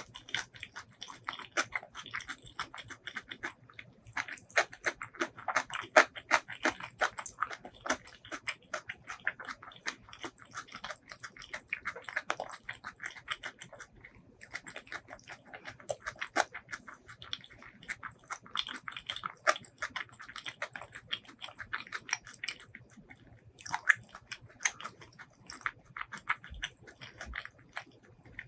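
Close-miked chewing of a mouthful of food with the lips closed: a steady run of small mouth clicks and smacks, thinning briefly about halfway and again about two-thirds through.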